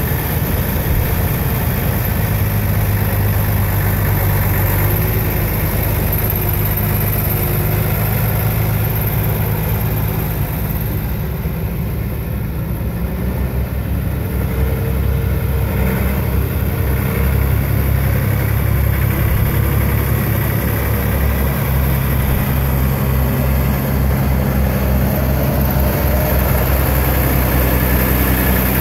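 1974 Massey Ferguson 1135 tractor's six-cylinder turbo diesel idling steadily, a little fainter for a few seconds in the middle.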